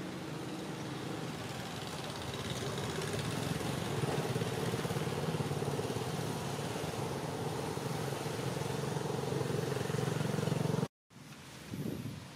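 A motor engine running steadily, a low hum that grows a little louder over the first few seconds. It cuts off abruptly near the end, leaving faint rustling.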